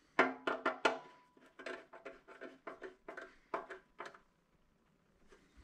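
Sharp metallic clicks and clinks of screws being fitted into the metal mounting plate of a TV stand base, a quick run of four in the first second and then more at irregular intervals until about four seconds in, each with a short ring.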